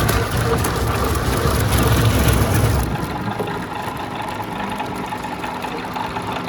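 Heavy mill machinery running steadily, with a deep rumble that drops away about three seconds in, leaving a quieter, even machine drone.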